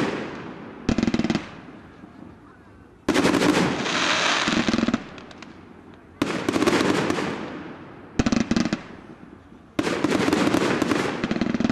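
Fireworks display: a run of aerial shell bursts, each starting suddenly and loudly, some as short dense crackles and some as longer bursts that fade away, coming every two to three seconds.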